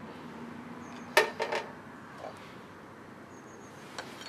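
Metal hand tools clinking on a hard floor: one sharp clink with a brief ring about a second in, a weaker one just after, then a couple of light ticks near the end.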